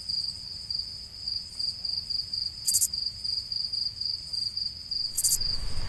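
Insects chirping: a steady high pulsing trill of about four or five pulses a second, with a brief higher buzzing burst twice, over a faint low rumble.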